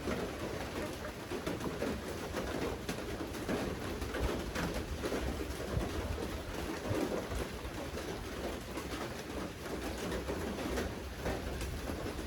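Steady rain falling, with many individual drops ticking close by, and a bird's low cooing repeating every second or two underneath.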